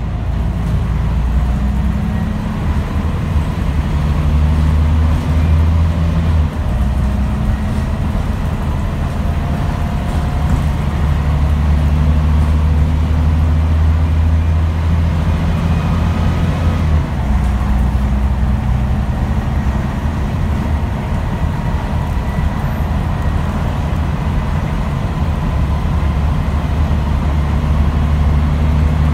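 Scania N94UD double-decker bus's five-cylinder diesel engine running hard under load, heard from inside the upper deck, with a faint rising whine from the drivetrain. The engine note changes abruptly twice, about six and seventeen seconds in, as the automatic gearbox changes gear.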